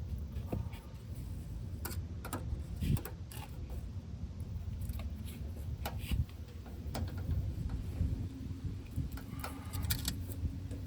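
Scattered clicks and clinks of metal hand tools being worked on a truck's brake line fitting, over a low steady rumble.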